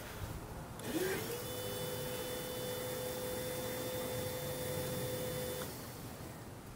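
Toyota Prius's electric coolant pump spinning up with a rising whine about a second in, then running with a steady hum for about four and a half seconds before cutting off; it starts up again just at the end. It is being run to draw coolant in and push air out while the cooling system is bled.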